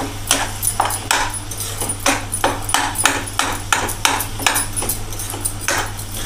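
Metal spoon scraping and knocking against an aluminium pot while stirring thick grated-carrot halwa, about two to three strokes a second.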